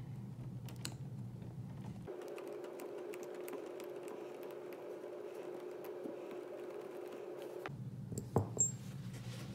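Light, irregular clicks and taps of a small wheel nut wrench working the hub nut off an RC crawler's wheel, over a faint steady hum. One louder knock near the end.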